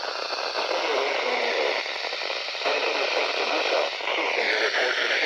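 Radio static from a weak broadcast signal: a steady hiss with faint whistling tones that waver in pitch, one sliding down about four seconds in.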